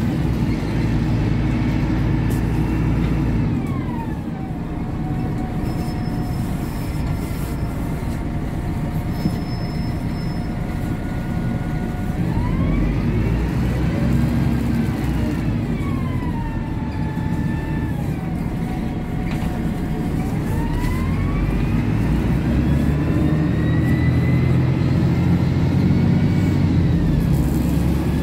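Interior of a MAN 18.220 single-deck diesel bus on the move: steady engine rumble under a drivetrain whine that rises and falls in pitch with road speed. The whine drops about three seconds in, holds low, climbs again around twelve seconds, falls and climbs once more, and falls again near the end, as the bus accelerates and slows in traffic.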